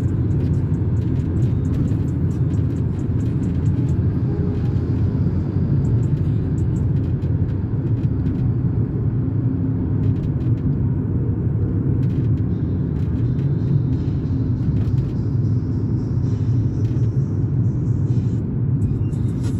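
Inside the cabin of a moving 1995 BMW E36 320i: its 2.0-litre straight-six engine and road noise make a steady low rumble while driving.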